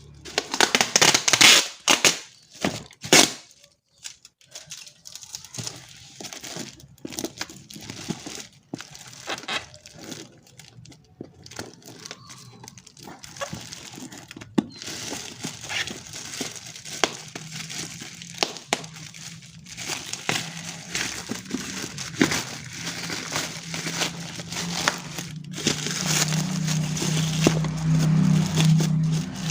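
Packaging being handled and opened: plastic and cardboard crinkling, rustling and tearing in irregular bursts, with scattered clicks and knocks. A steady low hum comes up in the last few seconds.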